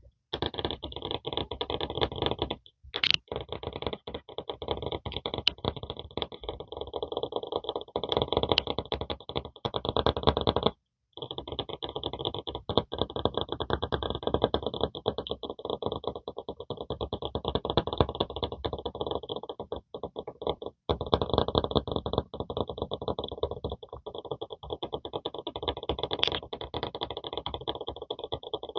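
Fingers rapidly tapping and scratching on an earphone's built-in microphone, a dense run of quick taps and scratches picked up directly through that mic, stopping briefly three times.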